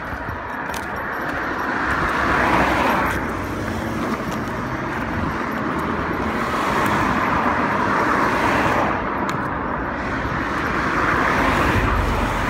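Cars passing one after another on a road, their tyre and engine noise swelling and fading as each goes by, loudest about two seconds in and again near the end.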